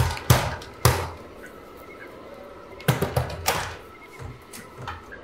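Fists banging on a wooden door: three heavy thuds in the first second, then another cluster of knocks and rattles about three seconds in, with a couple of lighter knocks near the end.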